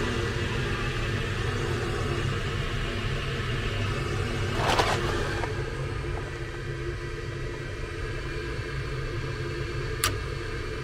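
Rheem gas furnace's draft inducer motor running with a steady hum during the ignition sequence, while the hot surface ignitor heats ahead of the gas valve opening. A short rustle comes about halfway through and a sharp click near the end.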